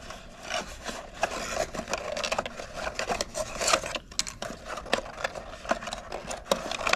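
Cardboard packaging being handled: a black cardboard insert rubbing and scraping against the sides of its box as it is pushed back in, with irregular scuffs and light taps.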